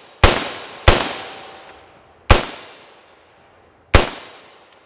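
Four single rifle shots from a BCM AR-15 firing 55-grain ammunition through a hammer comp muzzle brake, with no suppressor. Two come in quick succession right at the start, one a little past two seconds in and one about four seconds in. Each shot echoes away over a second or more.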